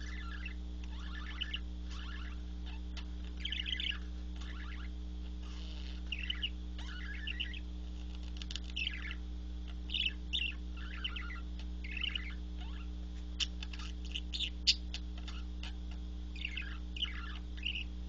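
Budgerigar chirping and chattering in short bursts about once a second, with a few sharp ticks about three-quarters of the way through, over a steady low hum.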